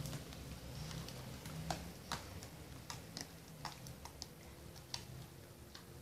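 Homemade jelly slime being poked and pressed by fingers on a board, giving scattered small sharp clicks and pops at irregular intervals.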